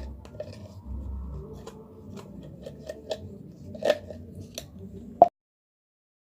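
A stirring utensil scraping and clicking against a container as it mixes white glue, talc and water into slime, in irregular strokes. A sharper knock comes a little after five seconds, then the sound cuts off suddenly.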